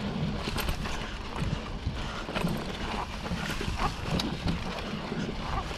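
Wind rumbling on the microphone, with several short, faint bird calls scattered through it.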